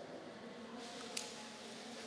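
Faint murmur of distant voices in a large room, with a single sharp click about a second in.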